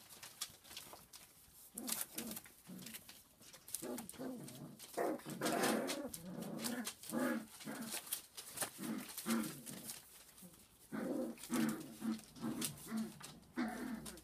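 Cockapoo puppies (F1 show cocker spaniel crossed with miniature poodle) making many short, low cries and grunts in a row, louder in clusters about five and eleven seconds in, with scattered light clicks among them.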